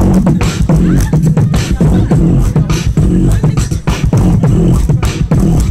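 Solo vocal beatboxing through a microphone and stage speakers: sharp snare-like hits about twice a second over a held low bass tone, keeping a steady beat.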